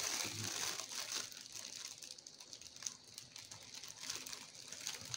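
Thin clear plastic bag crinkling irregularly as a hand rummages inside it.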